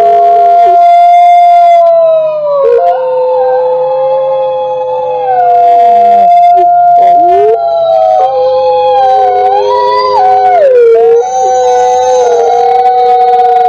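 Several wolves howling together in a chorus. Two or three long, overlapping howls are held at different pitches, some sliding up and down, with voices breaking off and coming back in.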